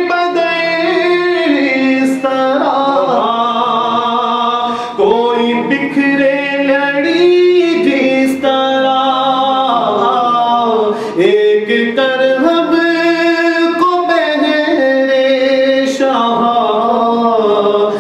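A man singing a devotional Urdu kalaam (a dua) solo and unaccompanied into a microphone, in long held notes that bend from pitch to pitch.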